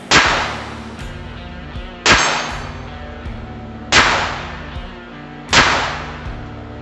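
Four shots from a Ruger LCP II .22 LR pocket pistol, spaced about two seconds apart, each a sharp crack with a short decaying tail. Background music plays underneath.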